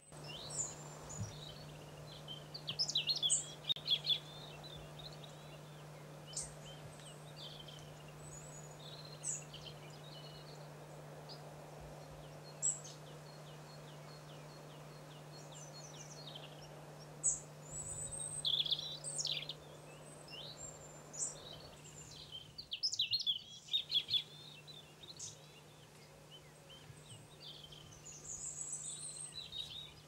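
Small songbirds calling and singing: many short chirps, quick trills and thin whistles come and go, with a steady low hum underneath.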